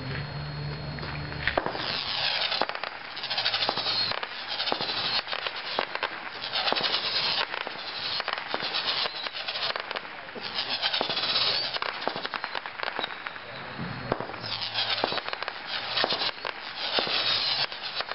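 'Mercurial Bee' 16-shot consumer firework cake firing: sharp pops of each shot followed by repeated bursts of loud high crackling hiss, starting about a second and a half in and coming every second or two.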